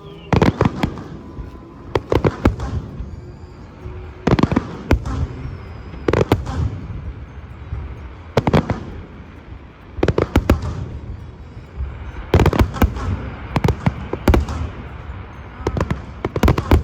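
Fireworks going off in repeated bursts, each a quick cluster of sharp bangs and crackles, about one burst every two seconds.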